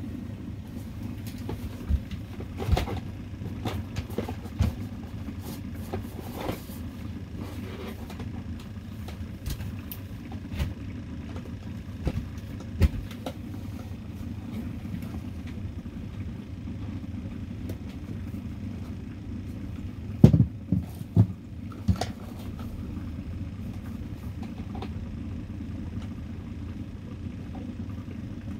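A steady low mechanical hum, with scattered clicks and knocks from fishing tackle being handled at an ice hole; a short run of louder knocks comes about two-thirds of the way through.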